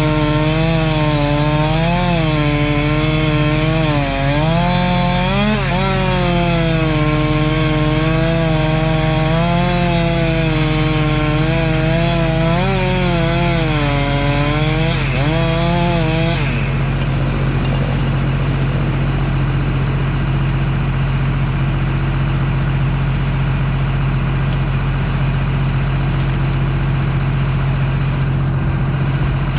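Chainsaw cutting wood, its engine speed rising and falling under load, over the steady idle of a crawler dozer's engine heard from its cab. The chainsaw stops a little over halfway through, leaving the dozer idling.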